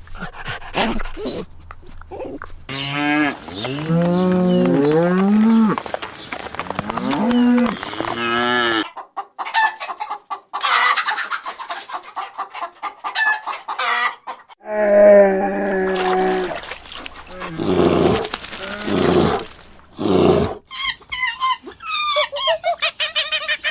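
Chickens calling: a rooster crowing and hens clucking, in several separate stretches with short breaks between them, and quick repeated calls near the end.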